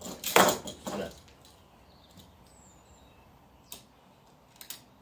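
A brief loud scraping, rustling burst of handling noise from work at the door cill, then quiet with two sharp clicks near the end. A bird chirps faintly once, about halfway through.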